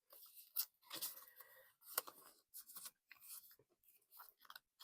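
Faint paper rustling and crinkling from handled cash and paper sheets, in short bursts with a few sharp clicks.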